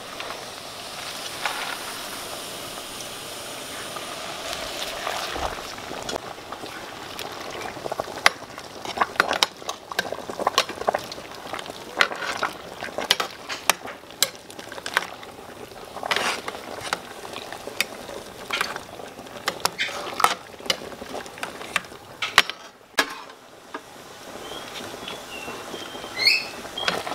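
Water boiling in an aluminium pot of blanching spinach, a steady bubbling hiss. From about eight seconds in, a slotted metal spoon stirs the leaves, with many sharp clinks and taps against the pot.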